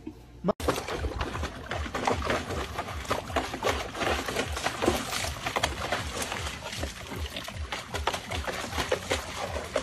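Water sloshing and splashing in a plastic tub as a dog paws at it with its front feet, in quick irregular splashes that go on without a break from about half a second in.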